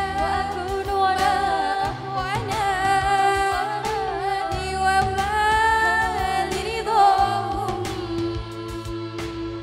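Music: a girl singing a slow melody with long held, wavering notes into a handheld microphone, over an instrumental backing with a bass line.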